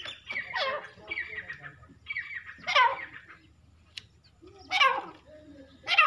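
Caged teetar (francolins) calling: a quick run of short chirping notes over the first couple of seconds, then loud, harsh calls that sweep steeply down in pitch, about two seconds apart.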